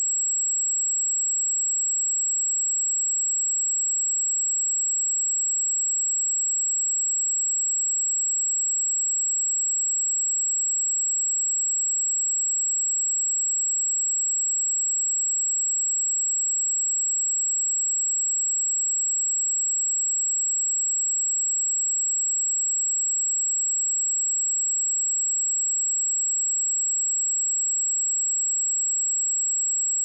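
A steady, high-pitched pure sine-wave test tone at 7665 Hz, one unchanging pitch held throughout.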